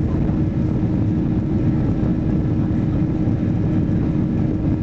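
Boeing 737-800's CFM56-7B jet engines at takeoff thrust heard from inside the cabin during the takeoff roll: a loud, steady rumble with a held low hum.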